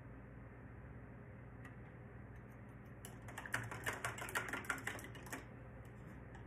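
Quick run of sharp clicks and taps from a paintbrush knocking against something hard, lasting about two seconds from around the middle, over a low steady hum.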